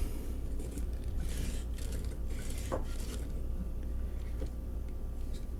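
A few faint clicks and light rubbing of small objects being handled, over a steady low hum.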